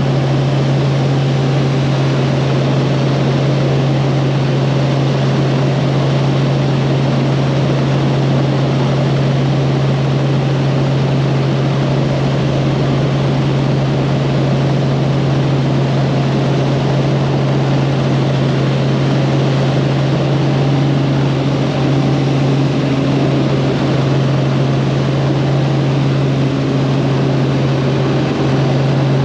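Helicopter in flight: a steady, loud drone of engine and rotor with a strong low hum.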